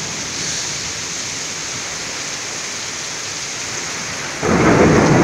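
Heavy rain falling steadily, a constant hiss. About four and a half seconds in, a sudden louder burst of noise breaks in and fades over a second or so.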